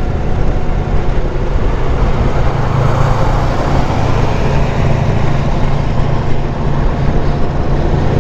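Indian Chief Vintage V-twin motorcycle riding at road speed, its engine note buried under heavy wind noise on the helmet microphone from the raised visor. The wind noise swells briefly about three seconds in.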